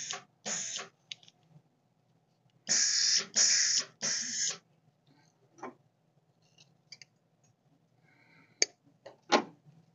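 Welder's shielding gas hissing from the gun in short bursts as the trigger is pulled to purge gas into the weld area: two brief bursts at the start, then three louder half-second bursts about three seconds in, followed by a few faint clicks.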